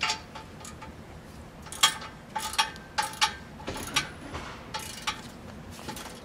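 Hand ratchet wrench working a bolt under a truck: irregular metallic clicks and clinks, some with a short ring, coming thickest from about two to four seconds in.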